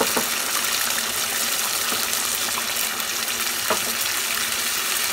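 Duck curry sizzling in a hot pot as water is poured in: a steady hiss of frying and running water, with a couple of light clicks.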